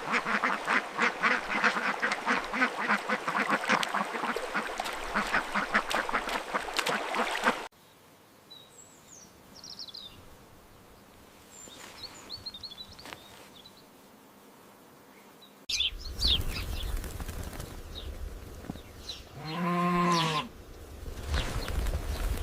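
Rapid, dense clanking of cowbells that stops abruptly, then a quiet stretch with a few small bird chirps. After that comes a low rumble and, near the end, a single drawn-out animal call.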